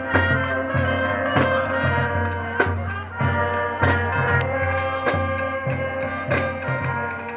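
High school marching band playing its field show music: sustained chords over a repeating bass line, with a heavy accented hit about every second and a quarter.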